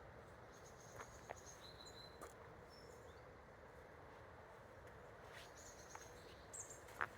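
Faint forest ambience: a soft steady hiss under a few brief high chirps and several soft clicks, the loudest click near the end.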